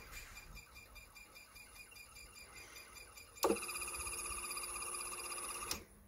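Small AC motor driven by a Mitsubishi FR-E800 frequency inverter, ticking faintly and regularly as it turns. About three and a half seconds in, a click brings a loud steady electrical whine with a high tone, which cuts off suddenly about two seconds later.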